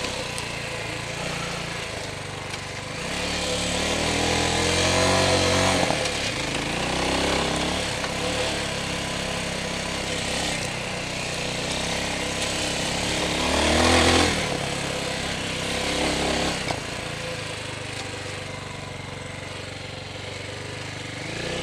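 TDR 300 dirt bike engine running under way on a rough track, its pitch rising as it revs up a few seconds in and again about 14 seconds in, which is the loudest point.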